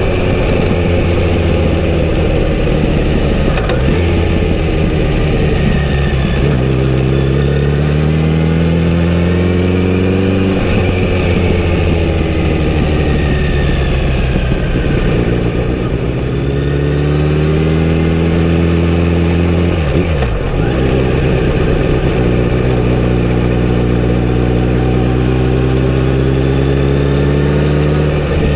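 Kawasaki Z900RS inline-four motorcycle engine through its stock exhaust, heard from the rider's seat while riding. The note climbs as the bike pulls through the gears, with brief breaks at the upshifts. Near the middle it falls as the rider eases off, then it climbs through the gears again.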